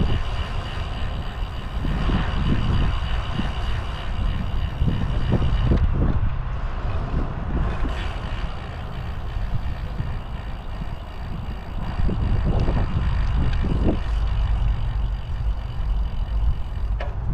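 Steady low rumble of wind and road noise while riding a bicycle outdoors, swelling and fading irregularly. A thin steady high whine runs underneath for the first six seconds or so and then stops.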